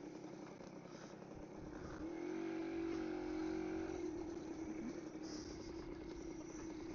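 1951 BSA Special motorcycle's engine running under way, its note climbing as the revs rise about two seconds in, then holding steady.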